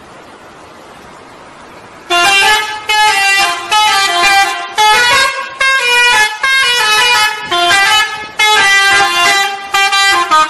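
Indonesian 'telolet' bus horn, a multi-tone horn, playing a tune of about a dozen short notes that step up and down in pitch, starting about two seconds in after steady background hiss.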